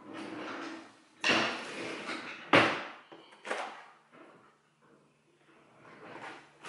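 Hair rollers and clips being rummaged through and handled: a rustling clatter about a second in, then a sharp knock, the loudest sound, about two and a half seconds in, and a smaller knock a second later.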